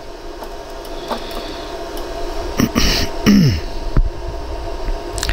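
Steady hum of a jewellery laser welding machine running, with a brief rustle of handling about three seconds in and two sharp clicks near the end.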